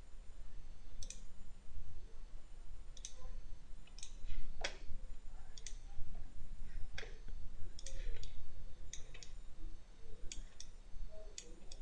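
Computer mouse clicking: sharp single clicks at irregular intervals, some in quick pairs, over a steady low electrical hum.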